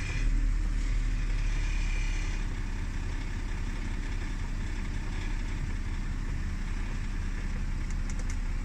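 Jaguar F-Pace engine idling just after starting. It settles from a slightly higher start-up level to a steady low idle about two and a half seconds in.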